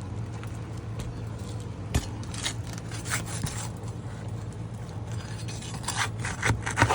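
Scraping and scattered knocks of a metal tool working against an asphalt roof shingle as a roofing nail is pried out, with a sharper knock about two seconds in and a cluster of scrapes near the end.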